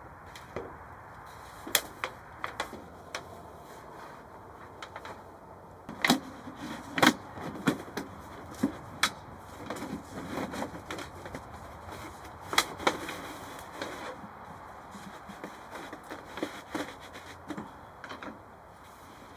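Irregular clicks and knocks, light and scattered, with a few sharper, louder knocks about six to seven seconds in and again around twelve and a half seconds.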